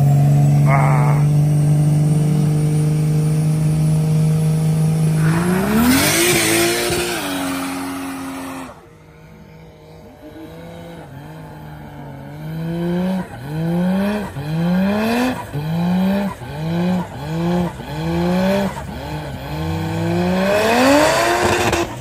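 A drag car's engine is held at steady high revs during a tyre-warming burnout, then the revs climb and the tyres squeal as it pulls away about six seconds in, cutting off suddenly just before the nine-second mark. After a lull, another car's engine is blipped about ten times in quick rising revs, then revs up long and hard with tyre squeal near the end.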